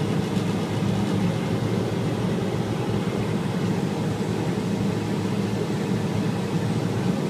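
Steady drone of a vehicle's engine and road noise, heard from on board while it drives along at an even pace.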